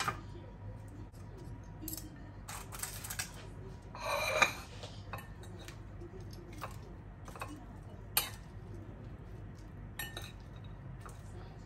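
Scattered light clinks and knocks of hard objects, with a louder clatter about four seconds in and a sharp click about eight seconds in.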